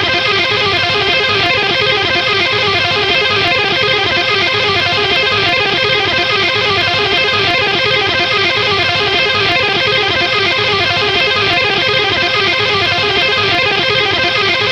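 Guitar playing fast rock chords: rapid, evenly repeated strums at a steady level with no pauses.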